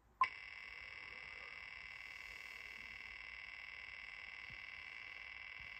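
Online spinning-wheel sound effect from a laptop speaker: a click about a quarter second in, then a rapid, steady run of faint ticks as the wheel spins.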